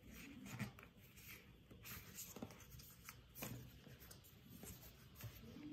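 Faint rustling and creasing of a folded sheet of green paper handled on a table, with a few soft crinkles.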